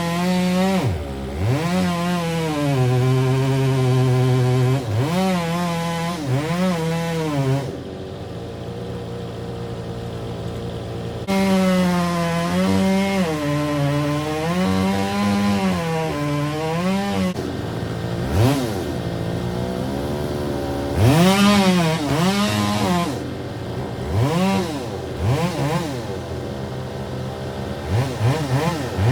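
Two-stroke chainsaw revved up and down again and again, its pitch rising and falling with the throttle, with a quieter, lower stretch about eight to eleven seconds in.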